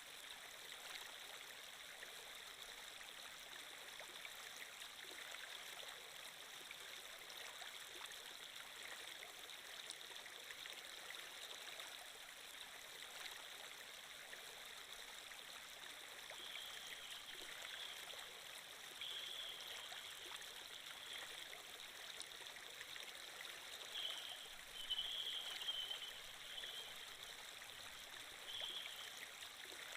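Water flow sound effect: a steady, quiet rush of a flowing stream. In the second half, short high-pitched blips come and go over it, loudest about three-quarters of the way through.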